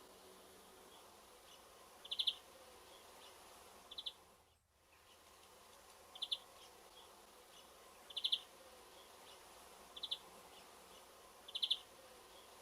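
European greenfinch calling: a short, rapid trilled note repeated about every two seconds, six times.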